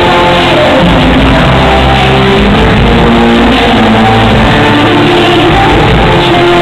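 Loud rock music with guitar, running continuously with held notes and no break.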